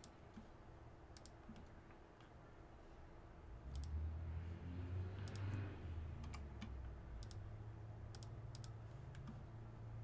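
Scattered computer mouse and keyboard clicks, a dozen or so spread unevenly, as spreadsheet cells are selected and cleared. A faint low hum comes in under them a few seconds in.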